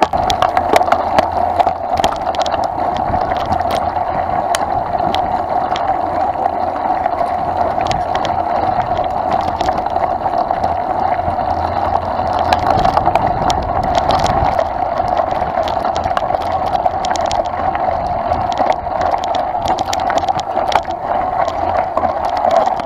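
Mountain bike riding over a rough dirt trail, heard from a camera mounted on the bike: a steady rush of tyre and wind noise with frequent small rattles and knocks from bumps.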